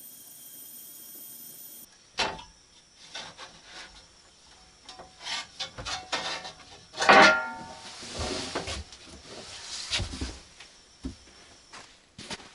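Portable butane gas grill burner hissing steadily, stopping suddenly about two seconds in. Then knocking and clattering as things are handled around the grill on a wooden table, the loudest a metallic clank with a brief ring about seven seconds in.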